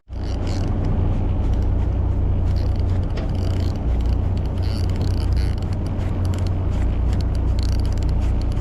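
Steady low rumble of a fishing boat's engine running, with faint hiss and light ticks above it.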